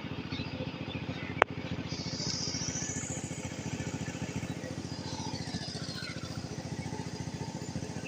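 A small engine running steadily with a fast, even pulse, with one sharp click about a second and a half in.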